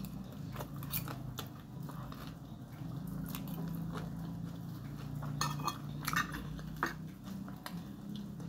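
Eating sounds: chewing of roast chicken and rice, with a metal spoon clinking and scraping against a glass plate several times, the sharpest clinks about two-thirds of the way in.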